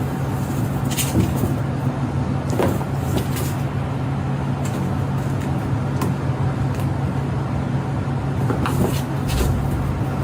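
Steady low engine hum and rushing noise, like the inside of a moving vehicle, with a few light clicks and knocks.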